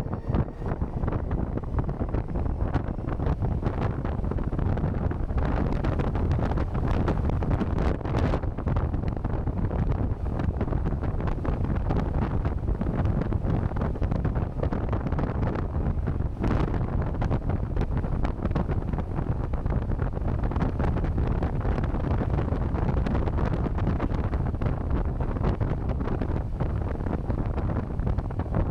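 Hard wind buffeting the microphone of a moving motorcycle: a steady, dense rumble with fluttering gusts and no clear motor tone.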